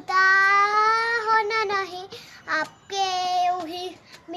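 A young girl singing a Hindi film song solo without accompaniment: a long held note at the start, then a short phrase and, after a brief breath, a second held note.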